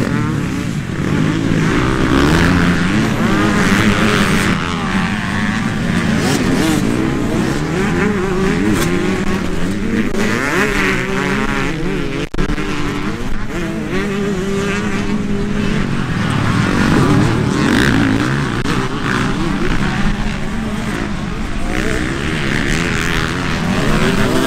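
Several motocross bikes racing past, their engines revving up and down and overlapping as the riders accelerate and shift. The sound drops out for a split second about halfway through.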